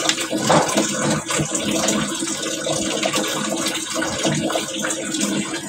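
Water running steadily, with a few faint knocks.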